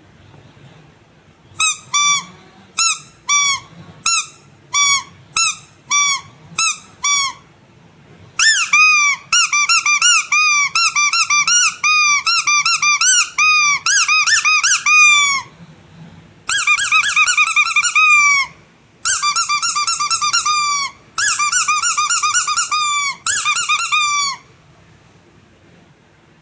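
Squeaky rubber animal toy squeezed by hand: first about ten single squeaks, evenly spaced, then rapid squeaking in four long runs. Each squeak bends up and down in pitch.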